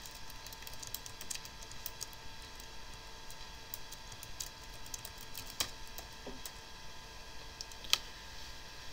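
Typing on a computer keyboard: a string of irregular key clicks as a command is entered, over the computer's own faint steady whine.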